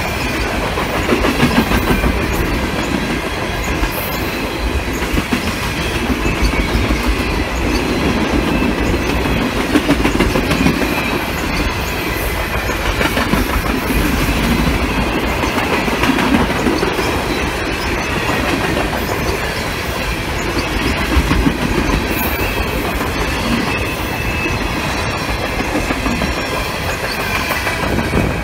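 Loaded insulated boxcars of a freight juice train rolling past close by: a steady rumble of steel wheels on rail with rapid clickety-clack over the joints and a thin wheel squeal at times.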